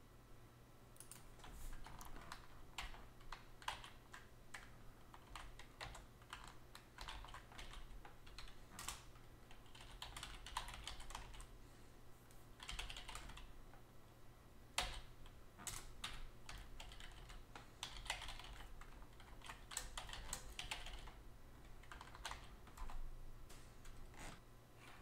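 Computer keyboard typing: quiet, irregular runs of keystrokes with short pauses between them.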